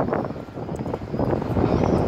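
Wind buffeting the microphone, a gusty rumble that swells and dips unevenly.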